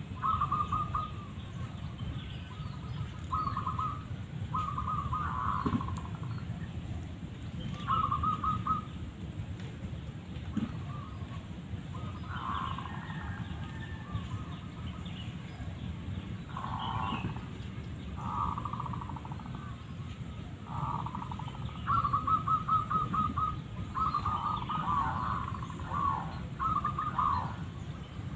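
Zebra doves (perkutut) cooing: short phrases of rapid staccato coo notes repeated every second or two, at times two calling over each other near the end, over a steady low rumble.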